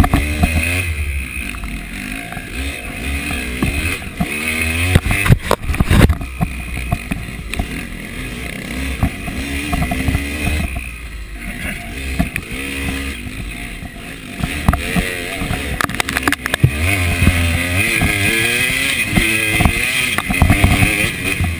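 KTM 300 two-stroke dirt bike engine revving up and down over and over as it is ridden through a muddy field, with a few sharp knocks about five to six seconds in and again near sixteen seconds.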